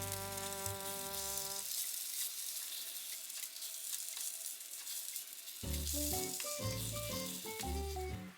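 Food frying in a hot pan, a steady sizzle. Background music over it stops about two seconds in and comes back near the end.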